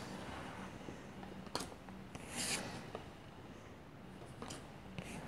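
Faint handling of trading cards: a soft swish of a card sliding about two and a half seconds in, with a few light clicks and taps around it.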